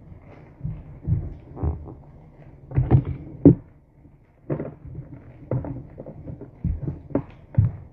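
Soft, irregular thumps and knocks of things being handled and set down on a kitchen counter, about one or two a second, with a plastic bag being handled over a salad tub.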